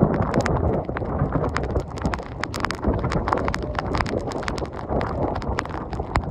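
Derecho-force wind gusting across the microphone, a dense, shifting rush of noise, peppered with many sharp, irregular taps of wind-driven precipitation striking nearby.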